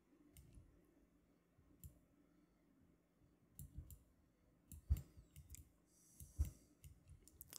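Faint computer mouse clicks, scattered single clicks with a few coming close together.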